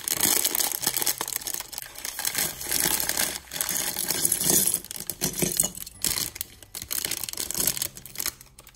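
Clear plastic LEGO parts bag crinkling and tearing as hands pull it open, with a dense run of crackles that dies down near the end.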